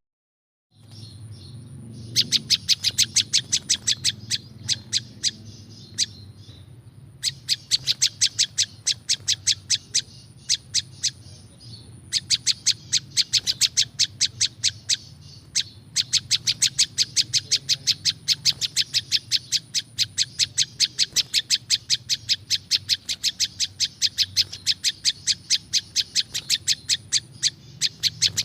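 Prenjak lumut, a small songbird, calling in long runs of sharp, high chirps, several a second, with short lulls between runs. A faint steady high tone sounds behind the calls.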